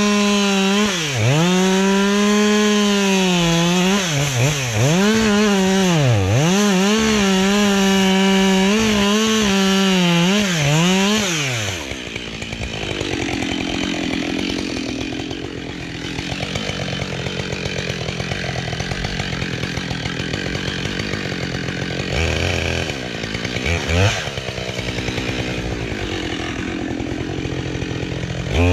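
Husqvarna 572XP two-stroke chainsaw at full throttle. Its pitch dips and recovers repeatedly as it is loaded in the cut. After about 12 seconds it drops to a quieter idle, blips briefly once near the 24-second mark, and revs up again at the very end.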